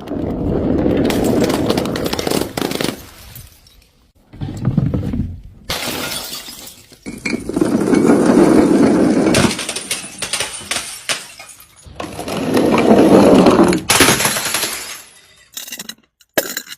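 Glass breaking and shattering over and over: three long crashes of shards, each lasting two to three seconds, with a shorter one about four seconds in. Near the end come short, chopped-off bursts of breaking glass with silent gaps between them.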